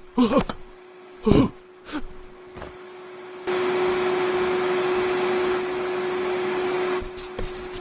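A few short voice exclamations, then a steady machine-like rushing noise that starts about three and a half seconds in and stops about seven seconds in.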